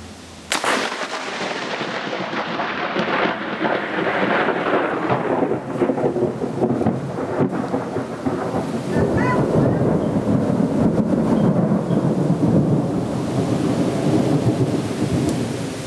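A thunderclap cracks sharply about half a second in and rolls on into a long rumble of thunder, which swells again, deeper and louder, from about nine seconds in, with rain falling.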